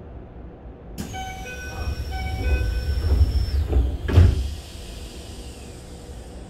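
Keisei 3000 series commuter train's passenger doors working at a station stop: a two-part electronic door chime sounds over a falling whine of the door mechanism, and the doors end with a loud thump about four seconds in.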